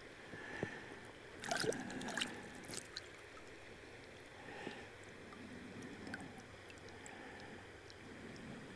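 Faint flowing river water gurgling, with a few short sharp knocks or splashes about one and a half to two and a half seconds in.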